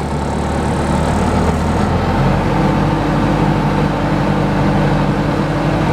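Articulated loader's engine running under load as the machine drives, its note stepping up in pitch about two seconds in.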